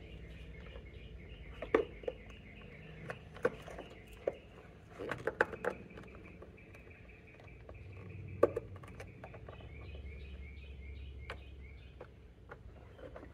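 Scattered small clicks and taps of a screwdriver and hands working on wiring next to the car battery. Birds chirp faintly in the background.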